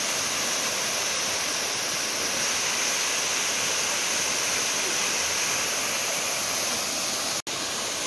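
Waterfall cascading down a rock face into a pool: a steady, even rush of falling water, cut off for a split second once near the end.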